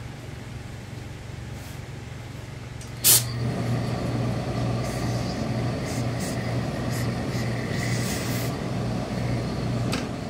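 Hose-fed steam iron pressing fabric: a sudden loud burst of steam about three seconds in, then a steady hiss over a pulsing low hum until near the end.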